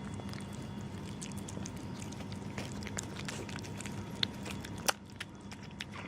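A cat chewing and crunching food: quick irregular clicks and crunches, with a sharper crack just before the five-second mark, over a steady low hum.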